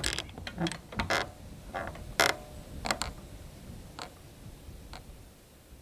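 Saloon-style swinging doors creaking and knocking as they swing to and fro. The swings come fainter and further apart as the doors come to rest.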